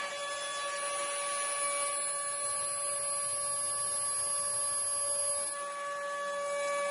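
The two 800 W spindles of a mini CNC router whine steadily on fixed high tones. The stepper-driven gantry carries them as the bits mill a wooden board, and a rougher cutting noise rises and falls beneath the whine.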